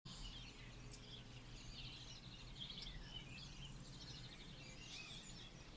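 Faint birdsong: several birds chirping and giving fast trills, over a low steady hum.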